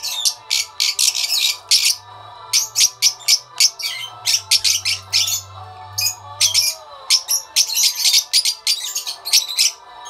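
Fischer's lovebirds chirping in a cage: a rapid, unbroken run of short, high-pitched chirps, several a second.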